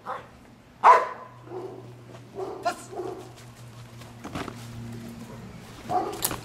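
A trained protection dog barking in loud, sharp barks, the loudest about a second in, with weaker barks through the middle and a sharp crack near the end.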